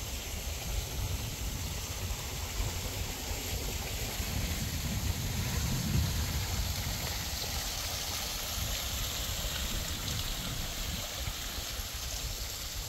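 Water trickling and splashing from a small stone wall fountain into its basin: a steady hiss of running water over a low rumble.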